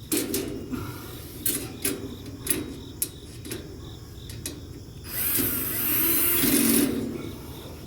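Metal grill parts clicking and knocking as they are handled, then, about five seconds in, a power drill runs for about two seconds.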